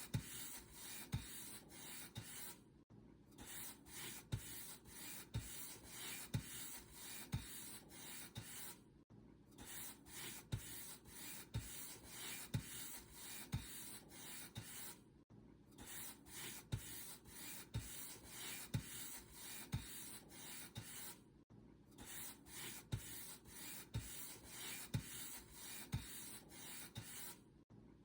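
Paint brush bristles stroking back and forth over a surface: a dry swishing, about two strokes a second, with a brief pause about every six seconds.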